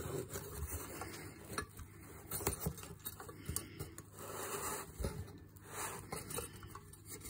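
Cardboard and foam packing rustling and scraping, with irregular small knocks and clicks, as a metal stove fan is worked out of its box.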